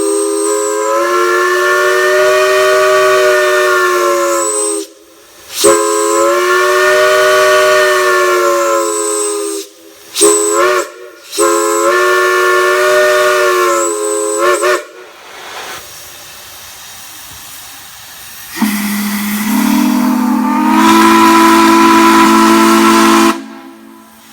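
A large multi-note chime whistle blown on steam sounds three long blasts, each sagging in pitch as it comes on and cuts off, with a couple of quick toots before the third. After a few seconds of hissing, a second, lower-pitched chime whistle blows one long blast that rises in pitch partway through.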